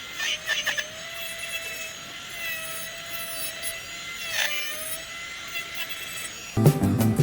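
Small high-speed rotary tool, like a dental lab micromotor handpiece, whining steadily as it works the acrylic of a broken denture, its pitch dipping briefly with short scraping bursts as the bur bites in. Loud music comes in near the end.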